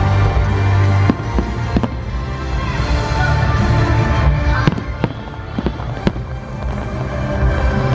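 Firework shells bursting in a string of sharp bangs over loud music playing for the display.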